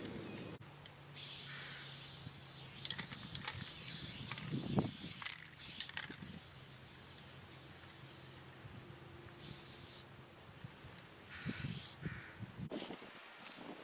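Aerosol spray paint cans hissing in bursts, some about a second long and others several seconds, each starting and stopping abruptly as the nozzle is pressed and released.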